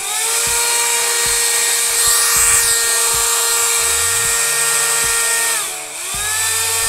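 Cordless mini vacuum cleaner's motor and fan switched on for a test run. It spins up to a steady high whine, winds down about five and a half seconds in, then spins up again near the end.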